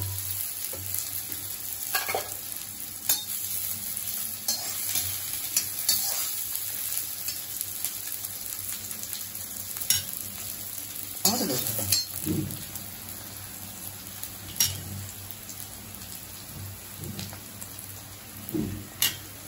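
Chopped onions frying in hot mustard oil in a kadai with a steady sizzle. A spatula scrapes and clicks against the pan now and then as they are stirred.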